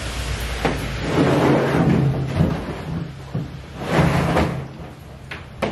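Knocks, scrapes and rustling as gear is moved and handled, over a steady low hum; the longest scraping comes about a second in and again around four seconds in.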